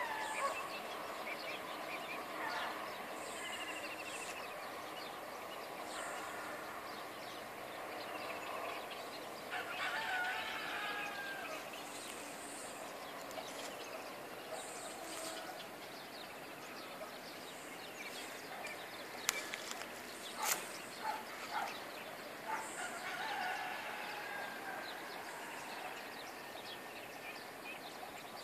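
Outdoor morning bird calls: many short chirps and calls over a steady background hiss. There are a few sharp clicks about two-thirds of the way through.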